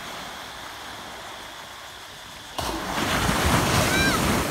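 Small waves breaking on a sandy beach: a steady surf hiss, then about two and a half seconds in a wave breaks and rushes up the sand, much louder, easing off near the end. A child gives a brief high call near the end.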